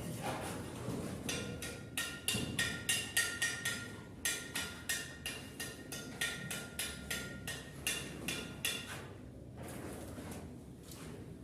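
A quick run of sharp knocks, about two to three a second, each with the same short metallic ring. The knocks start about a second in and stop about nine seconds in.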